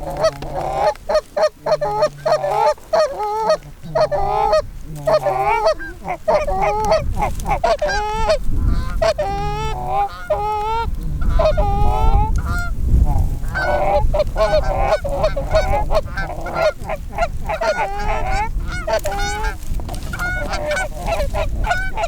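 Canada geese honking and clucking, many overlapping calls in rapid succession, as a flock works in over a decoy spread. A low rumbling noise builds under the calls from about six seconds in.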